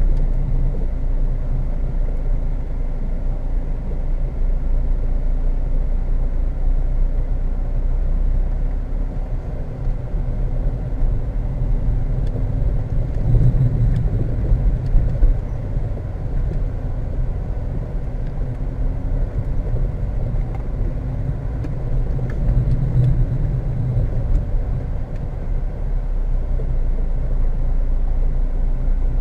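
Fiat Tipo 1.9 TD's four-cylinder turbodiesel engine running, heard inside the car's cabin as a steady low rumble. The rumble swells briefly about halfway through and again later.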